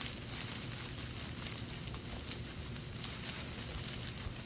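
Steady low hum and hiss with faint scattered crackling.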